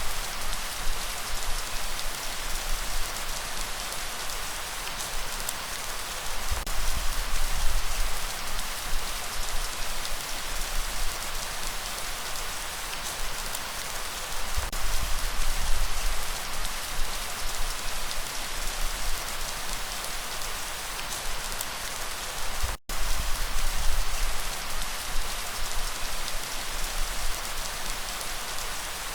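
Steady light rain: an even hiss of falling drops with a low rumble underneath. The sound cuts out completely for an instant about three-quarters of the way through, then resumes unchanged.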